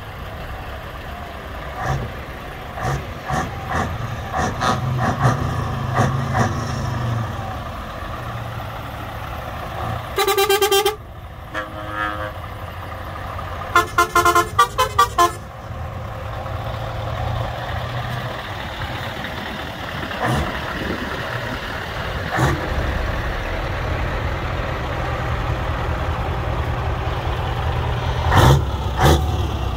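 A convoy of heavy trucks drives past with their diesel engines running as a steady low rumble. One truck horn sounds a single blast about ten seconds in, and a quick run of about half a dozen short horn toots follows around fourteen to fifteen seconds.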